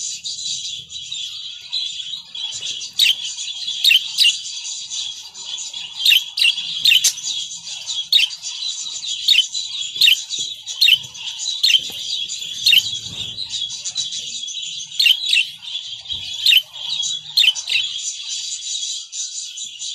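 Caged budgerigars chattering and warbling without a break, with sharp chirps about once a second.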